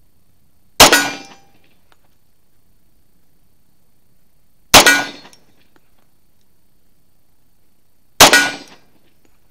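Rock Island Armory 1911 pistol in 10mm firing three single aimed shots, about four seconds apart, each a sharp report trailing off over about half a second.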